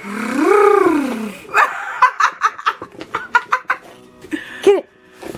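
Miniature Pinscher puppy barking in play: a long rising-and-falling cry at the start, then a quick run of short high yaps, about four a second, and one more bark near the end.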